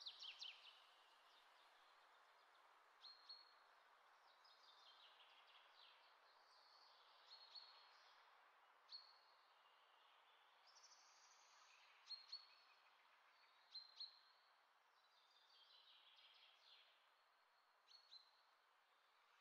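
Faint birdsong: short high chirps and quick runs of falling notes every second or few, over a soft steady hiss.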